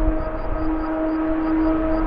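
Race car engine holding a steady high-revving note, growing slowly louder as the car approaches.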